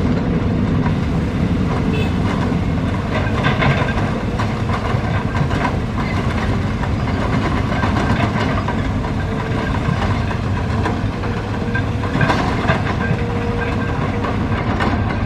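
Excavator at work: its diesel engine runs steadily under load, with scattered metallic clanks and clatter from the tracks and bucket.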